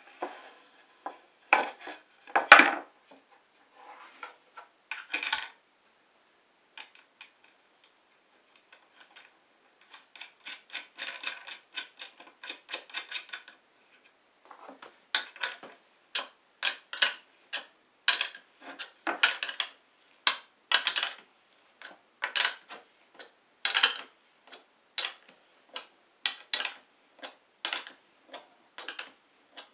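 Metal clinks and clicks of an M8 bolt, washer and nut being fitted and the nut tightened down. A few loud clanks in the first three seconds, a fast run of small clicks about ten seconds in, then sharp clicks about every half second.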